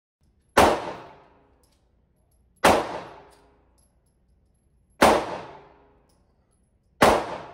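Four shots from a homemade single-shot .22 target pistol, about two seconds apart, each sharp crack followed by a short echo off the range walls.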